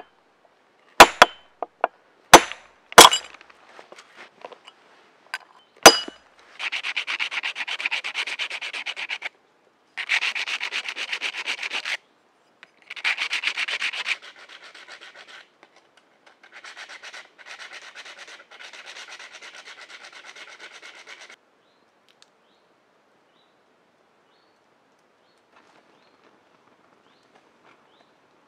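Four sharp metallic knocks in the first six seconds, a hammer striking a piece driven through a metal dowel plate on a wooden block. Then sandpaper is rubbed back and forth on wood in several long runs, the later ones quieter.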